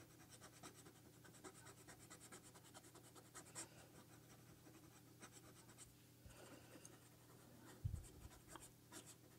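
Faint, quick repeated scratching of a paper blending stump rubbed in small strokes over coloured pencil on hot press paper, softening a shadow. A soft low bump about eight seconds in.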